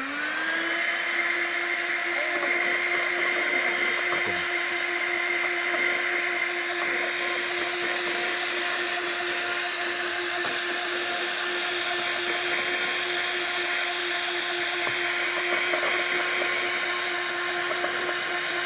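NAKO Tornado 12-volt handheld car vacuum cleaner running at full speed, sucking up sand from car crevices: a steady motor whine at one pitch over a rush of air.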